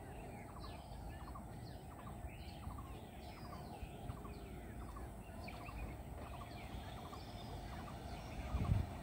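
Birds chirping and calling from the surrounding bushes, many short calls, with one bird repeating a short note about twice a second. A steady low rumble lies under them, and a brief low thump comes near the end.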